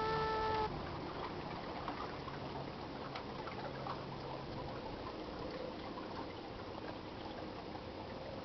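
Soft, steady trickle and lap of water, with a few faint small ticks.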